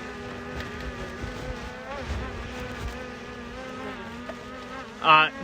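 Skydio 2 drone's propellers buzzing steadily, the pitch wavering a little as it flies, with a low rumble about two seconds in.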